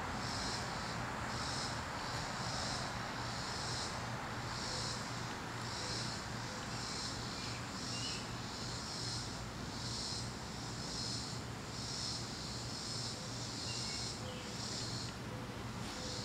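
High-pitched insect calls pulsing about once a second, with each pulse lasting about half a second. Beneath them run a steady low hum and a background hiss.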